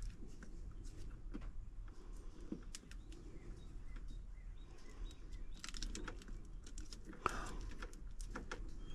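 Scattered light clicks and a few small knocks from handling small parts and wiring at close range, over a low steady hum. A dog whines faintly in the background.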